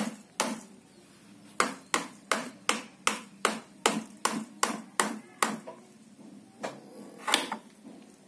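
A small child hammering a stone against a toy tricycle in pretend repair: a run of sharp ringing knocks, about two or three a second, which stops a little after halfway, then one more knock near the end.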